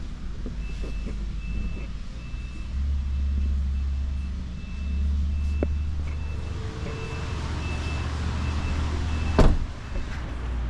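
A pickup truck's warning chime beeps steadily, about twice a second, over a low rumble. About nine seconds in a door slams shut, and the beeping stops with it.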